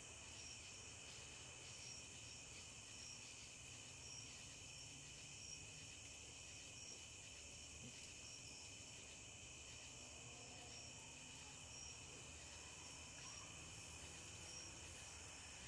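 Faint night insects chirping steadily, in an evenly repeating pulse, over near silence.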